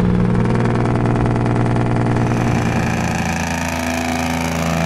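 Semi truck's diesel engine with its compression-release engine brake (Jake brake) engaged: a loud, steady, deep drone that drops to a lower pitch about halfway through.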